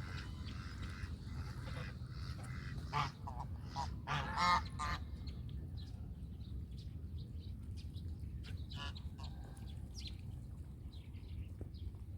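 Geese honking: a loud honk about three seconds in, then a louder run of honks a second later, with fainter calls later on, over a steady low background rumble.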